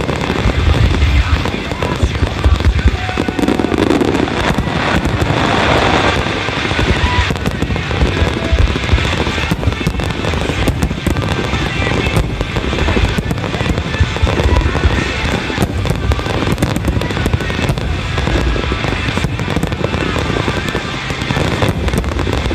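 Rapid, overlapping aerial firework bursts of a starmine finale, with deep booms and sharp cracks in a near-continuous barrage, over background music.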